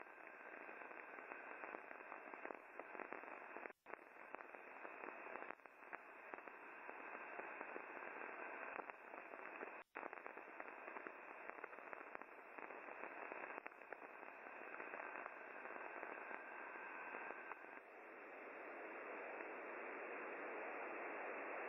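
Shortwave radio static and hiss from a WebSDR receiver set to a narrow, roughly 2.5 kHz voice passband. A steady whistle tone sits in the noise until about eighteen seconds in, and the audio cuts out for an instant twice as the frequency is changed.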